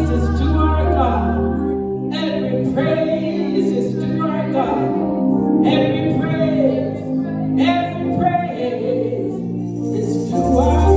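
Gospel music with singing voices over a sustained bass accompaniment.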